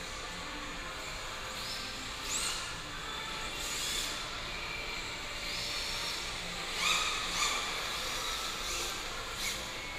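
Radio-controlled drift cars' electric motors whining in short high revs, rising and falling, several overlapping, over a steady background hum; the loudest rev comes about seven seconds in.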